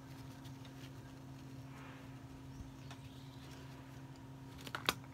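Faint steady low hum with a few light ticks, and two sharp clicks near the end.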